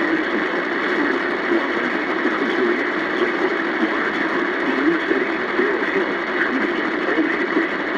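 Weather radio receiver putting out steady static hiss, with a faint wavering low undertone and no clear voice.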